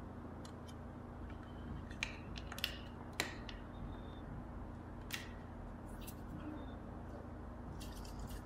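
A few sharp, light clicks and taps from handling the wiring and circuit board of an opened clock radio, over a low steady hum; the loudest clicks come about two, two and a half, three and five seconds in.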